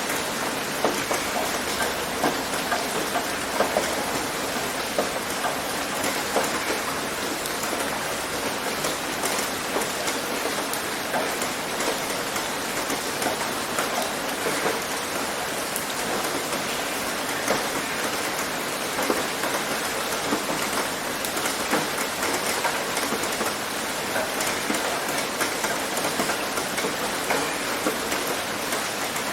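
Steady rain pattering on a tin roof, a dense even hiss dotted with many small sharp drop impacts.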